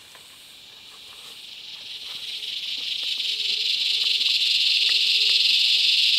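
Insect chorus: a steady high-pitched buzzing drone that swells strongly over the first few seconds, then holds.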